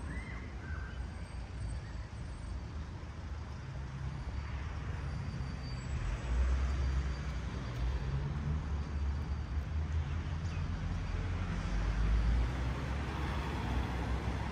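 City street traffic: cars and minibuses driving past with a steady low rumble of engines and tyres, swelling louder about halfway through and again near the end.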